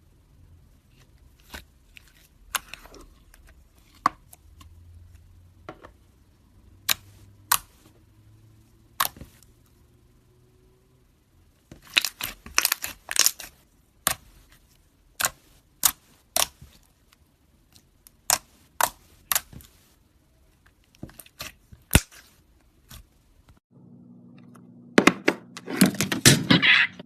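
Slime being squeezed and pressed by hand, giving sharp pops and crackles one or two at a time, with denser runs of crackling about halfway through and near the end.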